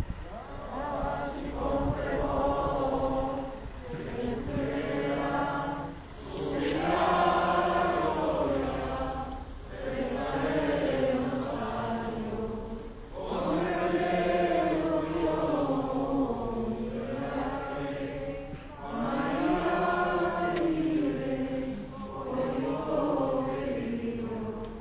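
A group of voices singing a slow devotional song together, in long drawn-out phrases with short breaks between them.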